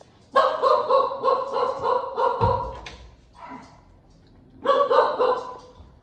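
Puppy barking in quick runs of high-pitched barks: a run of about two seconds, then a shorter one near the end.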